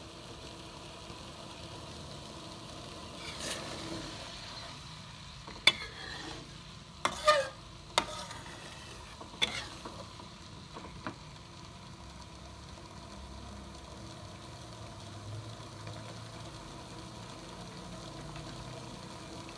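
A wooden spatula stirring a thick coconut-milk curry in a large metal wok, with several sharp knocks of the spatula against the pan in the middle of the stretch. A steady low hiss from the simmering pan runs underneath.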